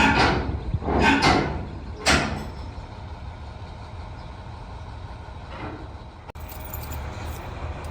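A heavy truck idling with a steady low rumble. About four short, loud bursts of noise come in the first two seconds, and there is one sharp click near the end.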